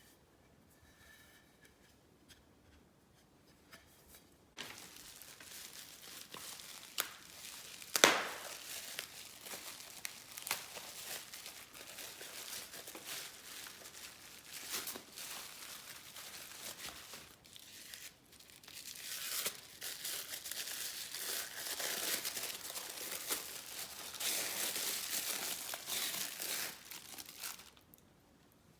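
Keyboard packaging being unwrapped by hand: rustling, crinkling and tearing of wrapping material that starts a few seconds in and stops near the end, with one sharp snap about a third of the way through.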